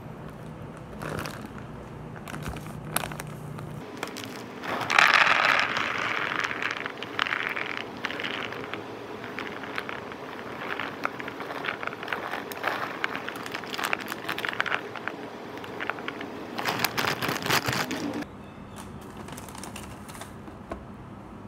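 Dry tapioca pearls rattling and scraping in a clear plastic tub as they are poured and handled, a dense crackling of many small hits. It is loudest about five seconds in and again shortly before the end, then gives way to quieter kitchen handling noise.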